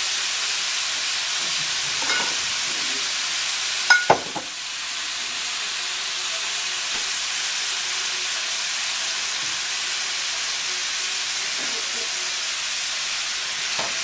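Veal shanks and chopped vegetables sizzling steadily in a stainless steel sauté pan, with two sharp knocks about four seconds in. A utensil starts moving through the pan right at the end.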